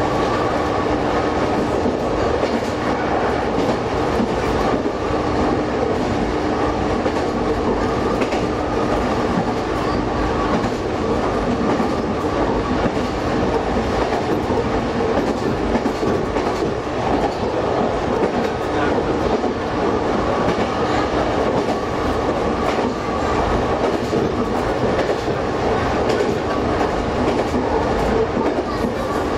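Diesel railcar running steadily along the line, heard from inside the driver's cab: a steady engine drone with the rumble and clatter of the wheels on the rails.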